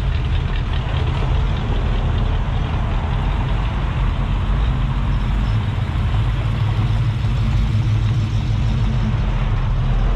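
A classic car's engine running at a low idle as the car creeps past. The deep exhaust rumble is steady and grows a little louder for a few seconds past the middle.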